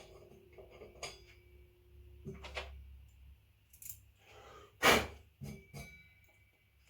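Metal tools and parts being handled: scattered light clinks and knocks, with one loud clunk about five seconds in followed by a faint metallic ring.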